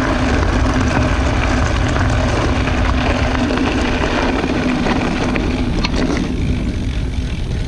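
Mountain bike tyres rolling over gravel with heavy wind rumble on the camera microphone and a steady low hum; the gravel crunch and hum fade about six seconds in as the bike rolls onto grass.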